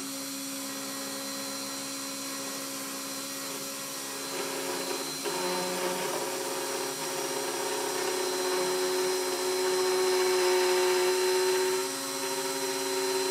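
CNC router spindle running steadily while its bit engraves lines into a wooden board: a steady whine over cutting noise. A new steady tone joins about five seconds in, and the sound grows slightly louder later on.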